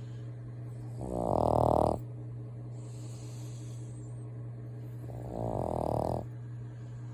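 A sleeping woman snoring: two loud, rasping snores about four seconds apart, each lasting about a second, over a steady low hum.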